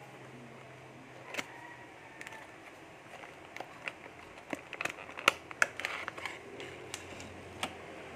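Cardboard and plastic packaging being handled as a small box is opened and a phone stand in a clear plastic blister pack is slid out: a run of sharp clicks, taps and rustles, sparse at first and coming thick and fast in the second half.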